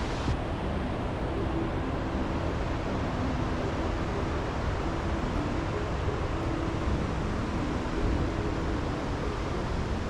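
Steady rushing of a large waterfall's cascading whitewater, an even, unbroken noise.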